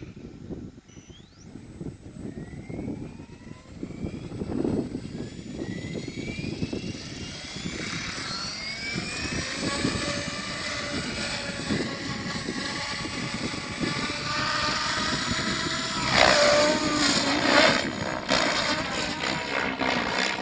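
Radio-controlled helicopter rotor spooling up with a rising whine over the first several seconds. It then holds a steady pitched hum as the helicopter lifts off and climbs, and swells louder with a wavering pitch a few seconds before the end.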